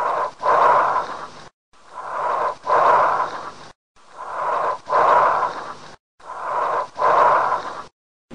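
Bronchial breath sounds, four breaths. Each is a harsh, hollow rush with a shorter inhalation, a brief pause, then a longer, louder exhalation.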